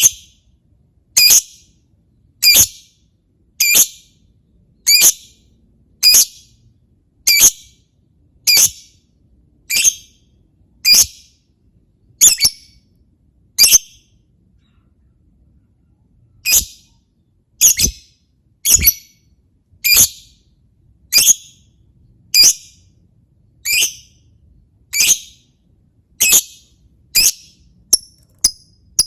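Lovebird giving sharp, shrill high-pitched calls, one about every second, with a pause of about three seconds midway; near the end the calls come shorter and quicker.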